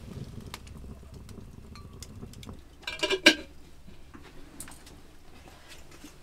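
Firewood crackling in a clay stove with scattered small ticks, and a short burst of clinking kitchenware about three seconds in.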